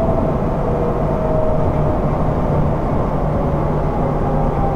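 Odakyu 1000 series electric train motor car (DeHa 1311) running, heard from inside the car: a steady rumble of wheels on rail with a low hum, and a motor whine slowly falling in pitch as the train slows.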